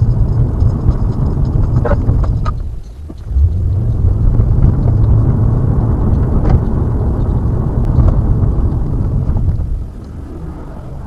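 Car driving, heard from inside the cabin: a steady low rumble of road and engine noise that dips briefly about three seconds in and eases off near the end, with a few light clicks.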